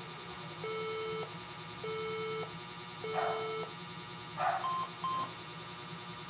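Electronic beeps: three longer, lower beeps about 1.2 seconds apart, then two short, higher beeps near the end, over a steady low hum.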